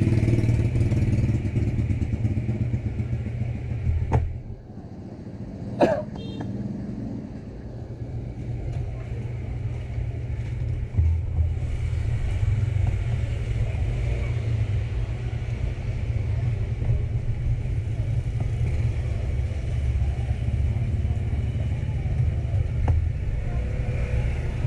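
A steady low rumble, with a sharp click about four seconds in and another click with a brief squeak about six seconds in.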